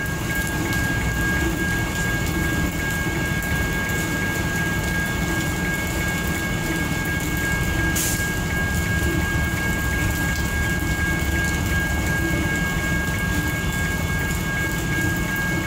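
Approaching GE C40-8W (Dash 8-40CW) diesel locomotive, its 16-cylinder engine a steady low rumble, with a faint steady high-pitched tone above it. A single sharp click comes about halfway through.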